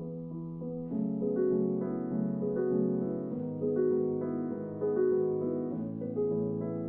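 Background music: a melody of single notes over held chords, the chords changing about every two and a half seconds.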